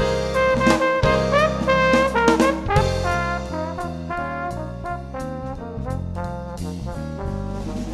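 Background jazz music led by brass instruments, with short sliding notes over a bass line.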